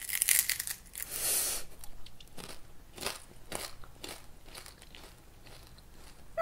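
Mouth crunching and chewing a dried, salted zebra tarantula: a dense crackle as it is bitten into, then separate crisp crunches about every half second as the resilient pieces are chewed.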